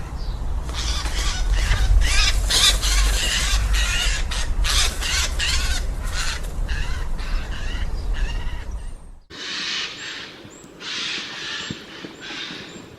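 Eurasian jay giving its harsh, rasping screech calls in a rapid run of calls over a low rumble, then, after an abrupt change in the background about nine seconds in, in separate calls roughly once a second.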